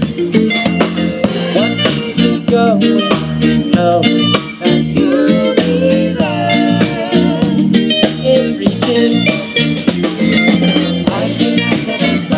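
A live band playing a song: women's voices singing into microphones over electric guitar and a drum kit, with a steady beat.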